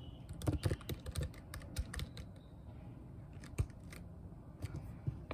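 Typing on a computer keyboard: irregular quick key clicks, with a few louder strokes about half a second in and past three and a half seconds.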